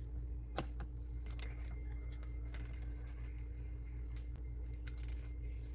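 Light clicks and taps of a tiny screw and small screwdriver being handled on model kit parts, with a sharper click about five seconds in, over a steady low hum.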